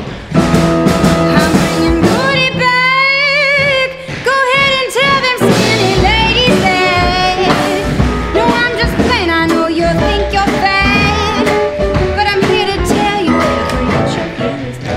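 Loud pop music with singing, the voice wavering through long held notes a few seconds in, over a steady beat.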